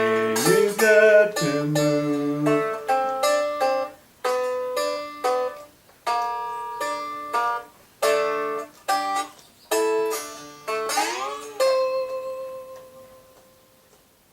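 Cigar box guitar fingerpicked acoustically, playing a closing blues phrase of separate plucked notes. About eleven seconds in it slides up into a final note that rings on and fades away.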